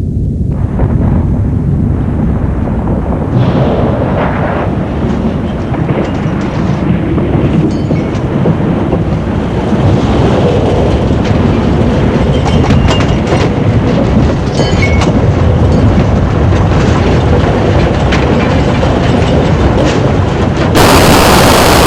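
Train running on rails, a heavy steady rumble with clattering throughout. Near the end it gives way abruptly to a louder hiss.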